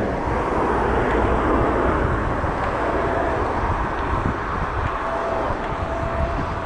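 Steady rush of wind on the microphone and road noise from riding an e-bike. A thin, steady whine comes in about three seconds in, drops out, and returns near the end.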